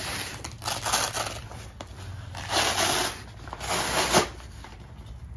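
Fabric of a Byrna Shield bulletproof backpack rustling as its flaps and straps are handled, in three short bursts about a second in, around two and a half seconds in, and near four seconds in.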